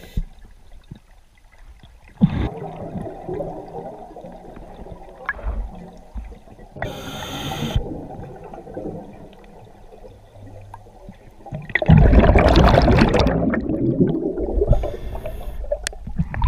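Scuba diver breathing underwater through a regulator, twice: a short high hiss on each inhale and a long spell of bubbling on each exhale. The loudest exhale starts about twelve seconds in.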